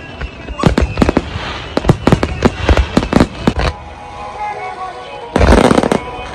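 Fireworks display: a rapid series of sharp bangs from aerial shells, easing off after about three and a half seconds, then a dense burst of crackling about five and a half seconds in.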